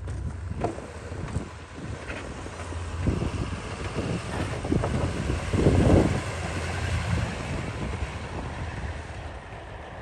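An engine running with a steady low rumble, with scattered knocks and wind buffeting the microphone. It swells loudest about six seconds in.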